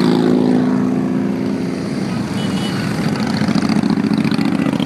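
A procession of large touring motorcycles passing one after another at a steady parade pace, their engines running as a continuous rumble. One bike's engine note is loudest during the first two seconds, then fades as it passes.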